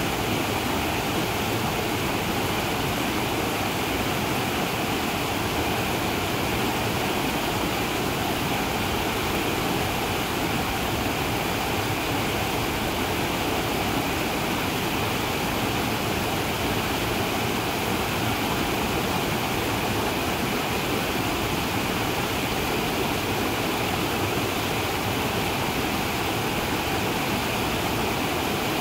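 Mountain stream rushing over a low rock ledge into a pool in a steady, even splash.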